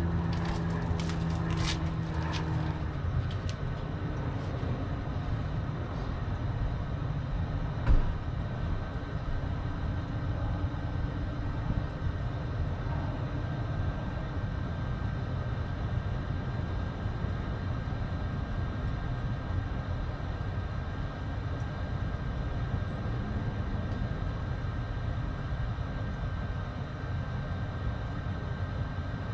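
Rheem gas tankless water heater running, a steady low rumble of its burner and combustion fan, freshly restarted after descaling and firing on a hot-water demand. A single sharp thump about eight seconds in.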